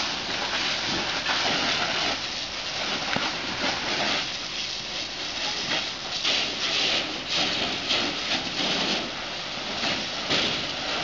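Water from a fire hose spraying onto burning debris, a loud hiss of spray and steam that surges and eases every second or so.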